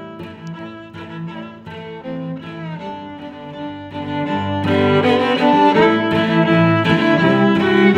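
Background music led by bowed strings, swelling and growing much louder about halfway through.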